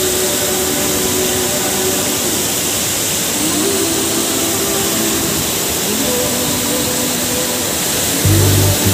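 Steady rushing roar of a waterfall and river water. Faint held tones glide up every few seconds behind it, and a loud low droning sound comes in near the end.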